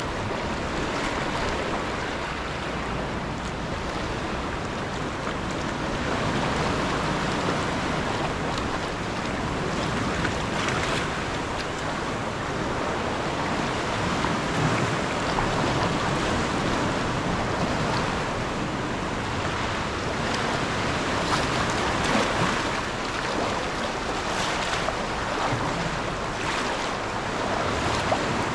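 Sea water sloshing and washing against rock cliffs around a sea kayak, with splashes from paddle strokes and wind on the microphone.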